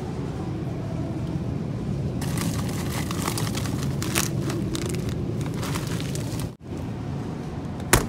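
Plastic bag of frozen corn and carrots crinkling as it is handled, from about two seconds in until past six seconds, over a steady low hum from the store and its freezer cases. A single sharp click comes just before the end.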